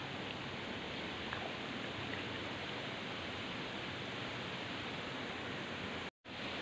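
Steady outdoor background hiss with a few faint ticks, broken by a sudden brief dropout to silence about six seconds in.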